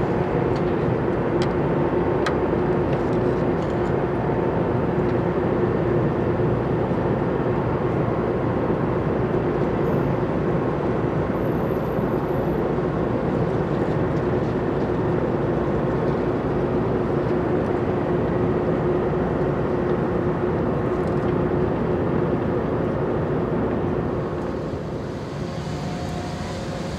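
Steady low engine drone with a constant hum from a large container ship passing close by, a little quieter near the end.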